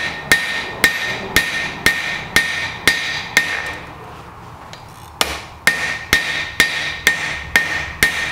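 Hand hammer striking a red-hot 4140 steel bar on a Cliff Carroll anvil at about two blows a second, each blow ringing briefly at one steady high pitch. The hammering stops for about a second and a half in the middle, then picks up again. The blows are spreading and tapering the tip of a hot-cut chisel.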